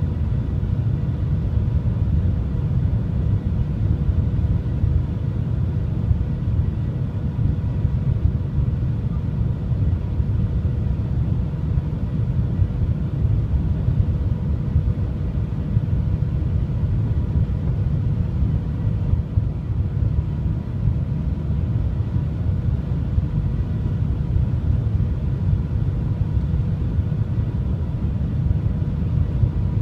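Steady low rumble of the Shanghai Transrapid maglev train travelling at speed, heard inside the passenger cabin, with faint steady hum tones over it.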